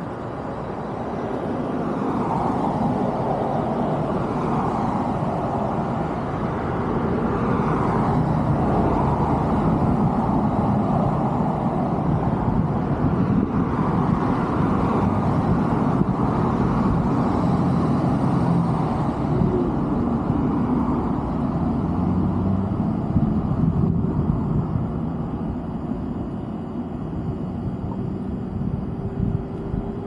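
Distant motor-vehicle rumble that swells over several seconds, holds for about ten seconds, then slowly fades.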